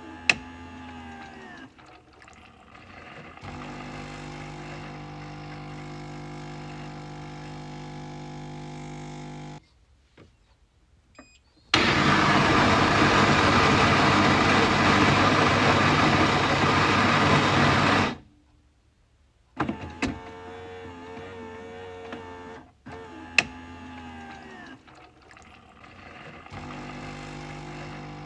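Coffee machine running: a click, then a steady hum for several seconds, a short pause, and a loud rushing noise lasting about six seconds that cuts off suddenly. After another pause come a few clicks and the hum starts again.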